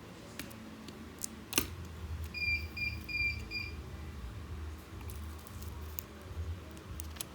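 Scattered small clicks and taps from handling the parts of a disassembled keypad mobile phone, the sharpest about a second and a half in. A quick run of four short electronic beeps sounds about two seconds in, over a steady low hum.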